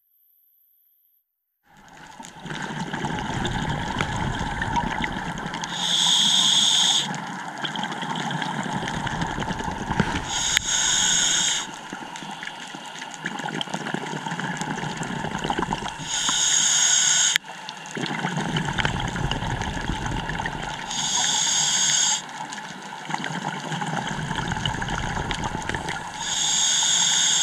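Scuba diver breathing through a regulator, after a couple of seconds of near silence: five times, about every five seconds, a short high hiss of an inhale, each followed by the low rumbling gurgle of exhaled bubbles.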